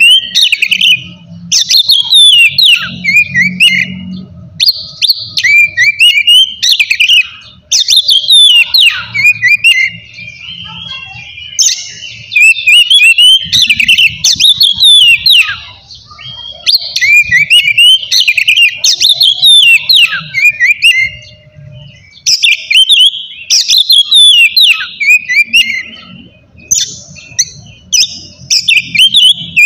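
Oriental magpie-robin (kacer) singing loudly and almost without pause in the full 'ngeplong' style: a rapid run of varied whistles, chirps and trills, broken by a few short pauses.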